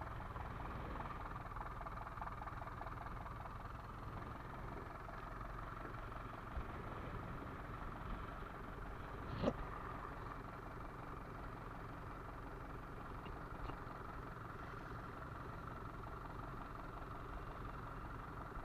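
A fishing boat's engine running steadily, with a single sharp knock about halfway through.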